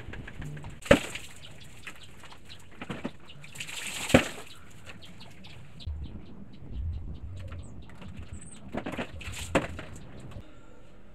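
Rustling and close handling noise, with sharp knocks about a second in, around four seconds in, and twice near the end, and a run of small clicks in between.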